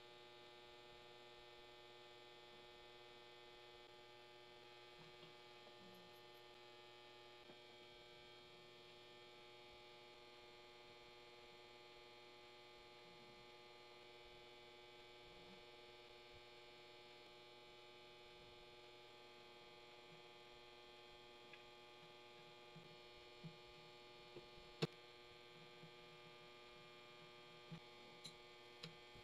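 Near silence with a steady electrical hum. In the last several seconds come a few light clicks and taps of small metal drill-press parts being handled; the sharpest is a few seconds before the end.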